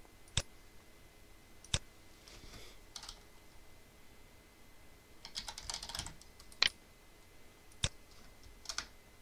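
Computer keyboard typing, with a flurry of keystrokes about five to six seconds in and a few shorter runs. Several single sharp mouse clicks fall in between.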